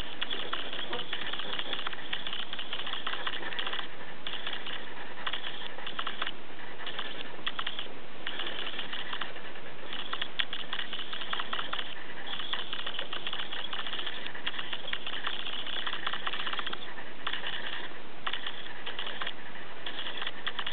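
Felt-tip marker scribbling back and forth on paper as an area is coloured in: rapid scratchy strokes in runs, with brief pauses between them.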